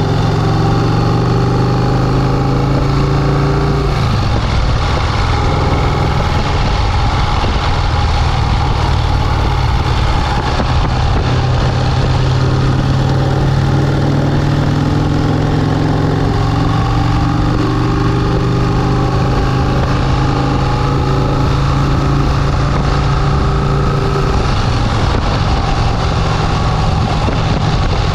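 1951 Vincent Rapide's 998 cc V-twin engine running steadily, its pitch shifting a few times as the revs change.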